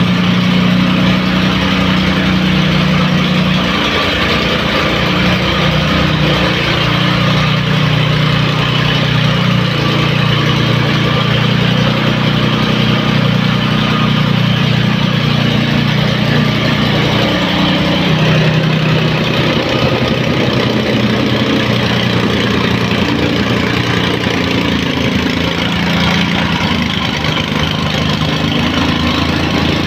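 Tamping rammer (stamper) running steadily as it compacts soil: a small engine with a fast, even pulsing beat.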